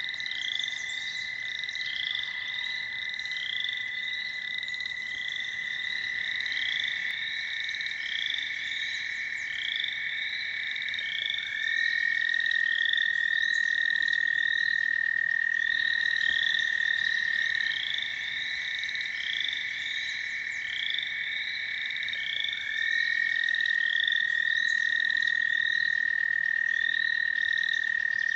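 American toads trilling: long, steady musical trills that overlap, each a little higher or lower than the last, with a new toad taking over every five or six seconds. Over them, a chorus of short, higher chirps repeats about twice a second.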